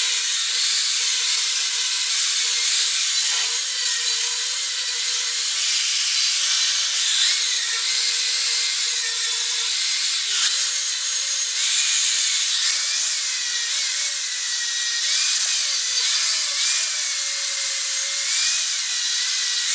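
Electric grinder grinding down and blending welds on mild steel rod: a steady, harsh grinding hiss, with the motor's whine dipping and recovering again and again as the disc is pressed into the work.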